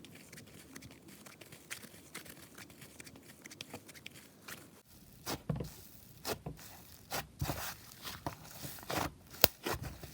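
Hands kneading and stretching an inflating white butter slime, making sticky crackling and popping sounds, really sizzly. The crackles are faint at first, with louder separate pops from about halfway and one sharp click near the end.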